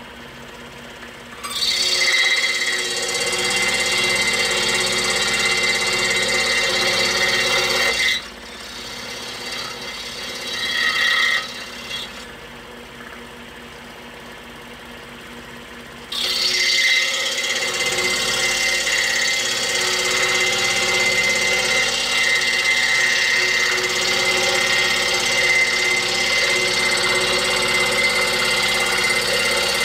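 Scroll saw cutting small blocks of hard maple, a steady buzzing saw noise. It runs for about six seconds, drops away for about eight seconds with a short burst in between, then comes back at about sixteen seconds in and runs on steadily.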